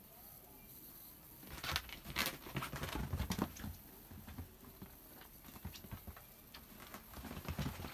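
Kittens scampering and wrestling on a sheet-covered mattress: the patter of paws and rustling of the fabric, busiest about a second and a half in and again briefly near the end.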